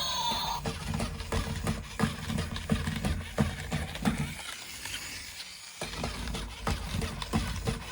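Plastic toy being handled: irregular clicks and rattles over a low rumble, with a short lull about five seconds in. A pitched tone stops just after the start.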